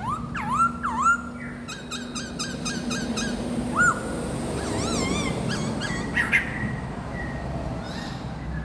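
Young songbird singing: a varied run of clear, looping whistled notes that rise and fall, some repeated quickly in series, with a few sharp, louder notes.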